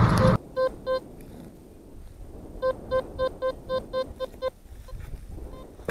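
A brief burst of loud car road noise cuts off at the start. Then a metal detector gives short, high, even beeps over target signals: two, then after a pause a quick run of about eight at roughly four a second.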